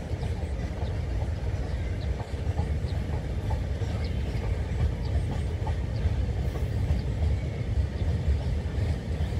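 Wind buffeting the microphone: a steady, uneven low rumble over a faint outdoor hiss.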